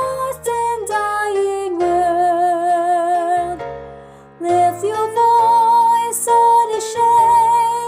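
Music from a choral anthem arrangement: long high notes held with vibrato, most likely a soprano voice, over a steady accompaniment. The music thins out and dips about four seconds in, then comes back in full.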